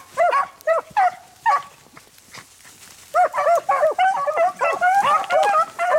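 Beagles baying as they run a rabbit's track, in short rising-and-falling cries. There are a few calls at first, a brief pause, then from about three seconds in several hounds give tongue together in overlapping cries.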